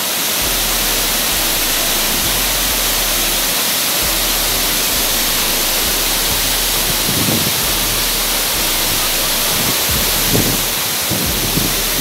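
Waterfall pouring over rocks in several streams: a steady, loud rush of falling water.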